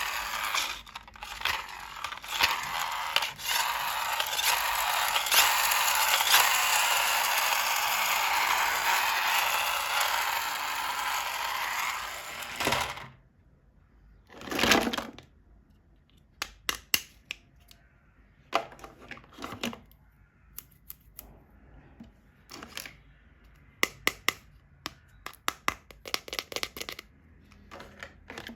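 Toy packaging crinkling and rustling steadily for about the first dozen seconds, then stopping; after one short rustle come scattered sharp clicks and taps of plastic toy pieces being handled.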